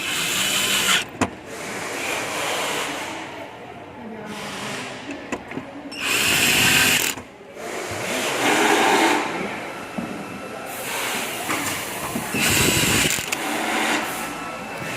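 Small electric screwdriver running in several short bursts of a second or so, with sharp clicks between them while screws are driven or removed.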